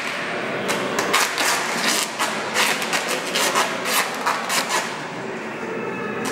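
Hammer knocking at the joint of a timber pole frame: a quick, irregular run of sharp knocks, several a second.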